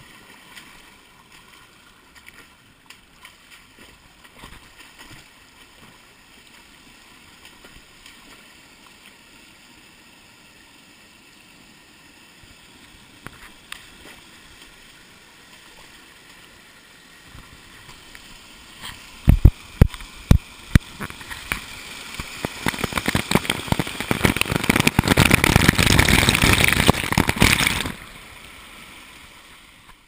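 A shallow woodland stream trickling faintly. About two-thirds of the way in, sharp knocks right at the camera, then several seconds of loud, close splashing and scraping that stop abruptly near the end.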